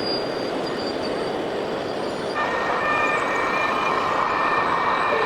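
Steady mechanical running noise. High whining tones join about two and a half seconds in, and the noise grows a little louder.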